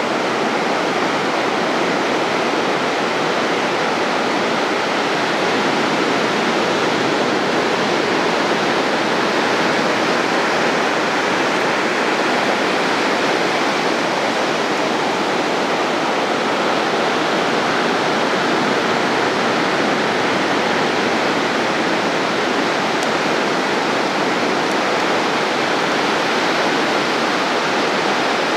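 Surf on a sandy beach: a steady, even rush of small waves breaking and washing up the shore.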